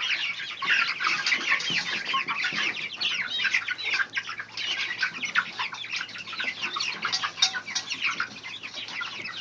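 A brood of five-week-old chicks peeping continuously as they eat mash and cracked corn, many short high calls overlapping.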